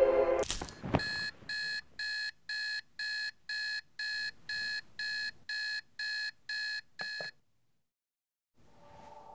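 Spartus digital alarm clock beeping: a run of identical high electronic beeps, about two a second, opening after a brief swish. The beeps stop abruptly with a click as the clock is switched off.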